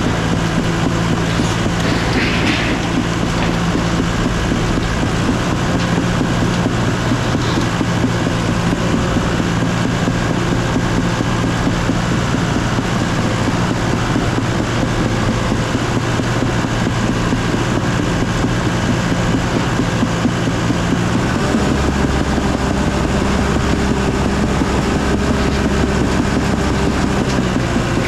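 Bulldozer's diesel engine running steadily under load, its note changing about 21 seconds in.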